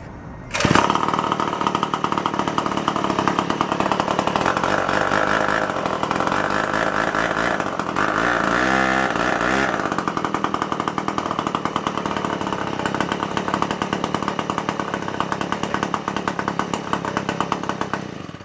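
1954 David Bradley chainsaw's single-cylinder two-stroke engine running, starting abruptly about half a second in and cutting off suddenly at the end. Its speed dips and picks up again about halfway through. The chain is not yet turning, as the clutch still needs rebuilding.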